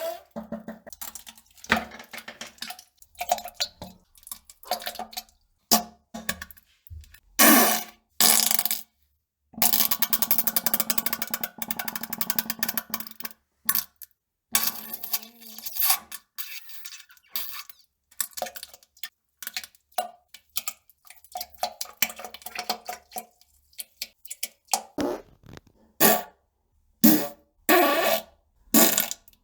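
A string of farts and bowel-movement noises: many short bursts, a few longer ones about eight and ten to thirteen seconds in, broken by sudden silences.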